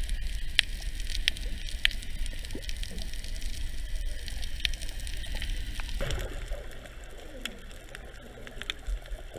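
Underwater sound picked up through a camera's waterproof housing while snorkelling over a coral reef: a steady, muffled low rumble with scattered sharp clicks and crackles. About six seconds in the sound shifts, with more mid-range crackle.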